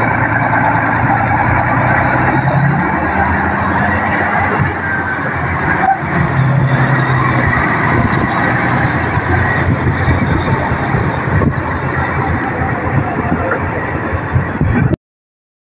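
Loaded heavy dump truck's diesel engine working as the truck pulls away through soft mud, its engine note rising about three seconds in and again after about six seconds. The sound cuts off suddenly near the end.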